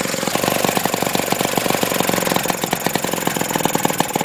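1950s Austin Villiers lawn mower's single-cylinder air-cooled engine running steadily, a loud rapid even firing beat, left to run until its petrol runs out.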